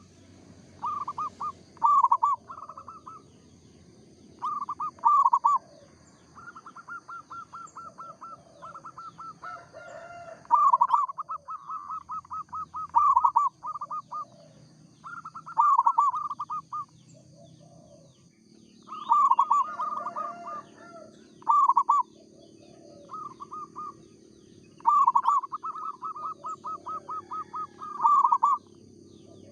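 Zebra dove cooing over and over: phrases of quick, rhythmic coos, each lasting a second or two, with short pauses between them.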